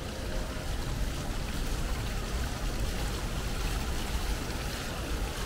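Steady rushing outdoor background noise with a low rumble underneath, like running water or distant traffic.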